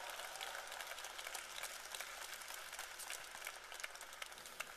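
Audience applauding, faint, with the clapping fading away toward the end.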